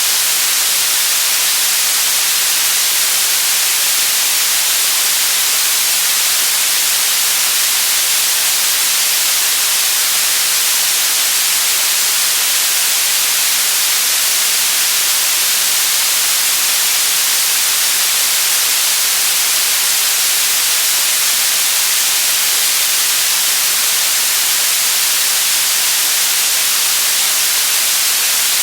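Steady white noise: an even, unchanging hiss, brightest in the treble, with no breaks or changes.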